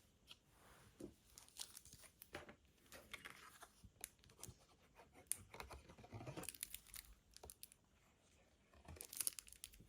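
Faint rustling, crinkling and small irregular clicks of cardstock and a liquid glue bottle being handled on a craft desk. The glue's nozzle is clogged.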